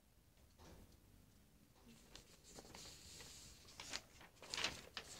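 Sheets of paper being handled and shuffled: a few faint, crisp rustles that start about halfway through and grow louder near the end, after a near-silent start.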